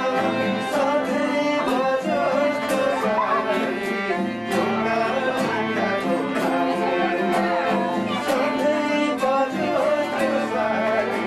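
Music with bowed strings carrying a melody over a steady beat.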